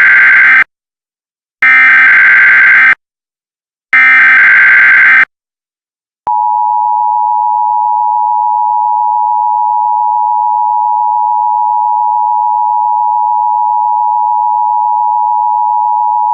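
Emergency Alert System broadcast tones: three loud bursts of the SAME digital header, each about a second long, then, about six seconds in, the steady two-tone attention signal that holds without a break.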